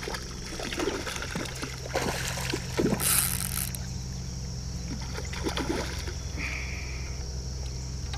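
A small hooked carp, about 3 to 4 pounds, thrashing and splashing at the surface close to the bank in irregular bursts, the loudest about three seconds in.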